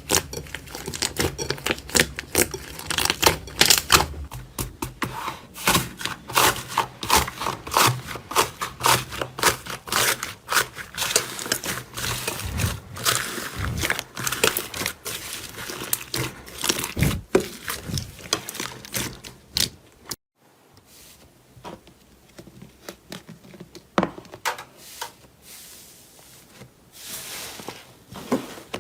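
Slime being worked by hand, giving dense sticky clicks and crackles. About two-thirds of the way in there is a sudden cut to quieter, sparser pops and squelches.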